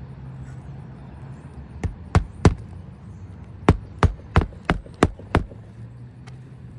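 Hammer driving roofing nails into an asphalt 3-tab shingle: three sharp strikes about two seconds in, then after a short pause six more at about three a second. A low steady hum runs underneath.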